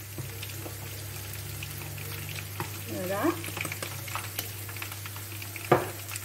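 Sliced red onions sizzling in oil in an earthenware tajine dish: a steady fine crackle with scattered small pops. A sharp knock near the end.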